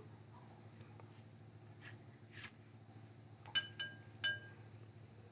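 A few light, ringing clinks near the end, a metal bangle knocking against a glass mixing bowl as hands shape cutlet dough, over a faint steady hum.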